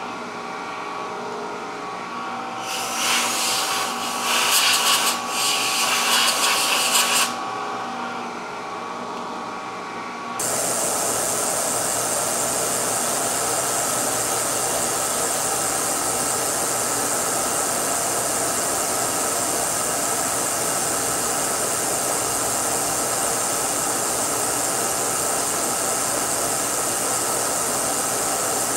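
Milling machine end mill cutting chrome-plated 1045 steel: over a steady machine hum, a few seconds of loud, rough cutting noise as chips come off. From about ten seconds in, a steady hiss from the spray nozzle aimed at the cutter covers the cut.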